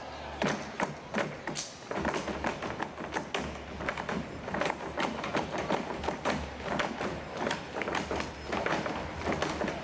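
Dancers' boots stamping and tapping on a stage floor in a folk dance, with many sharp knocks following one another closely, over quieter folk music.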